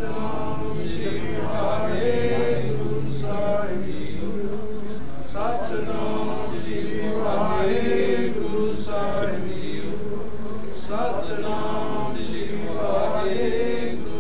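Voices chanting Sikh devotional hymns in short repeated sung phrases, without a break.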